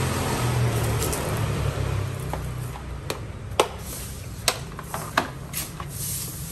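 A low rumble for the first two or three seconds, then several sharp clicks and taps, the loudest about three and a half seconds in, as a plastic case of LED headlight bulbs is handled and opened.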